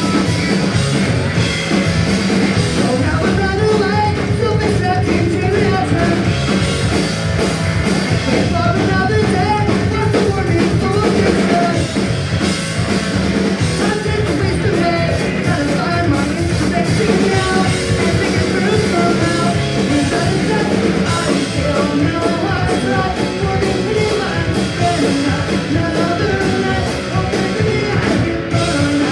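Live punk rock band playing loud, with distorted guitars, drum kit and bass, and sung vocals over the top.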